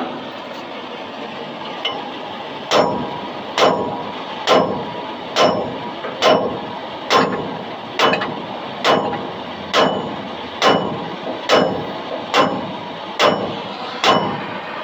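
Hammer striking steel, fourteen evenly spaced blows a little over one a second, each with a short metallic ring, starting about three seconds in: knocking on a trailer wheel hub whose burnt-up bearing has seized on the spindle.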